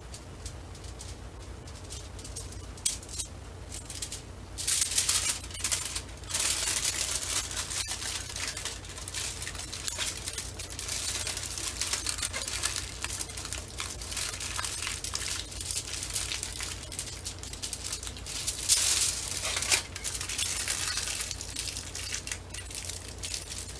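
Aluminium foil crinkling and rustling in irregular bursts as it is wrapped around a log of raw sausage meat and folded shut, getting busier about five seconds in. A steady low hum runs underneath.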